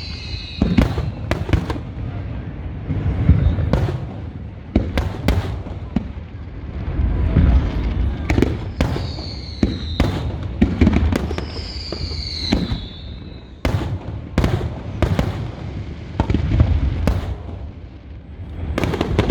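Fireworks display: a rapid, irregular run of deep booms and sharp bangs, with a few falling whistles from shells.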